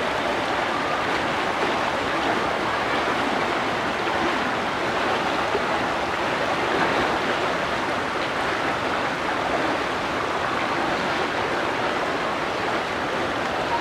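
Steady rush of running water from a small waterfall pouring over rocks into a pool.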